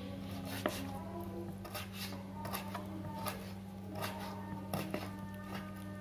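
Kitchen knife dicing raw, deboned chicken on a wooden cutting board: irregular knocks of the blade against the board, a few a second. A steady low hum runs underneath.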